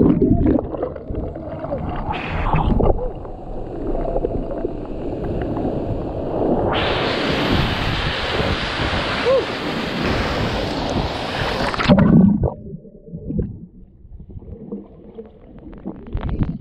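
Rushing water and splashing at a waterfall pool. A louder, brighter rush starts suddenly about seven seconds in and cuts off near twelve seconds, after which the sound turns dull and muffled.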